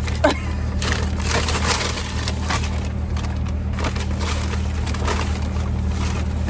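Crunching and crackling clicks from eating fast food and handling its packaging, scattered through a few seconds, over the steady low hum of the car.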